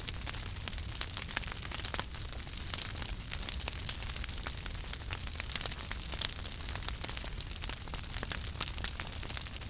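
Fire crackling: irregular sharp pops and snaps over a steady hiss and a low rumble.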